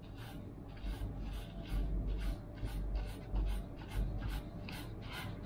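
Bristle brush sweeping plastic chips off a freshly CNC-engraved acrylic sheet, in quick repeated strokes about two to three a second.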